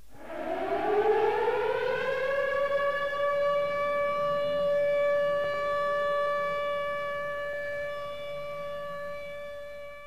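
Air-raid siren winding up in a rising wail over about three seconds, then holding one steady note that slowly fades over the last few seconds.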